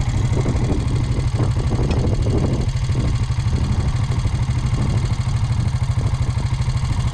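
An engine idling steadily, a low, even, fast-pulsing rumble, with some faint irregular noises over it in the first few seconds.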